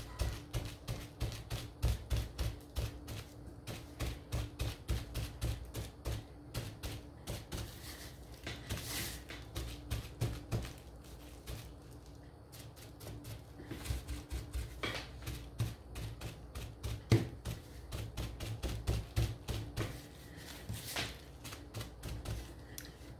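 Crumpled plastic bag dabbing paint onto a thin wooden windmill cutout lying on a tabletop: rapid, irregular taps, with a short lull about halfway through.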